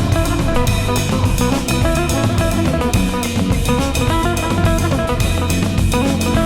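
Background music with guitar and a steady drum-kit beat.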